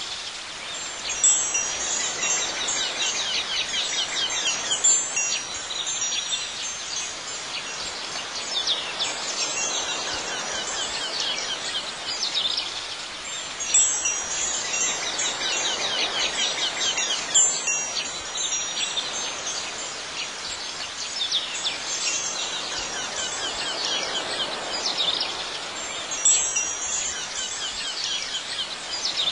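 Wind chimes ringing in irregular clusters every few seconds, over a soft steady outdoor hiss.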